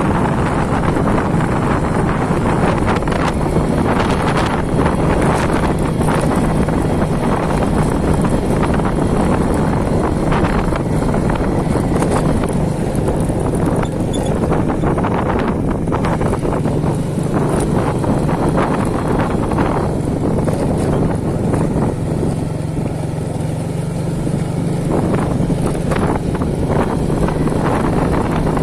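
Wind blowing hard across the microphone, a steady loud rumble with frequent gusty buffets and rustle. A steady low hum runs underneath.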